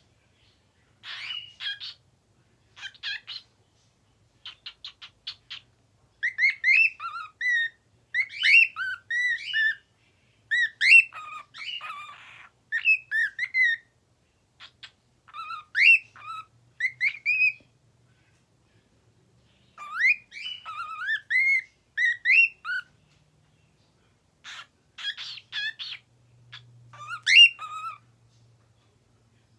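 Pet bird vocalizing: rapid clicking chatter for the first few seconds, then a varied run of short whistled notes that slide up and down, in bursts broken by pauses of a second or two.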